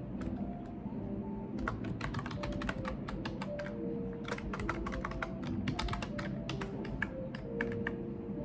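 Typing on a computer keyboard: quick runs of key clicks beginning about one and a half seconds in, with a short pause partway through.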